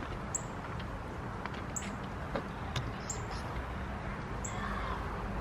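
A small bird chirping outdoors: four short, high, downward-falling notes spaced about a second and a half apart, over steady low background noise.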